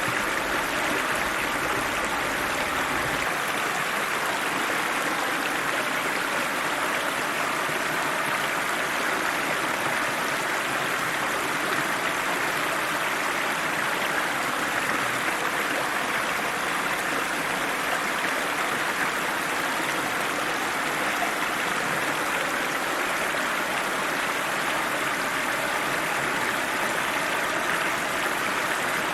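River water rushing steadily, an even, unbroken wash of sound. A faint low rumble underneath stops about three seconds in.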